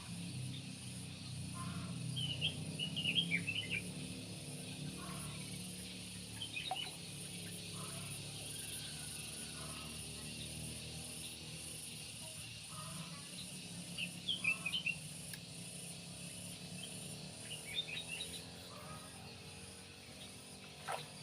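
Birds chirping in short clusters four or five times, over a steady high insect drone and a low steady hum.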